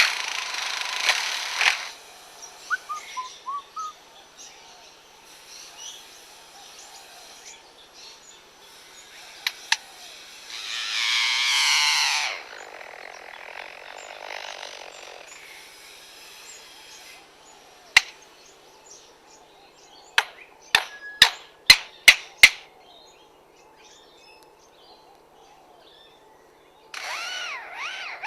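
Male superb lyrebird mimicking construction sounds: a run of power-tool-like whirring and rasping noises mixed with chirps. Partway through, a loud pitched whirr swells and fades over about two seconds. Later comes a quick series of sharp knocks like hammer blows.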